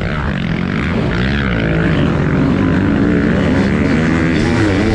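TM Racing 250 motocross bike engine at race pace, heard from onboard: the revs swing up and down through a corner about a second and a half in, then climb steadily as it accelerates.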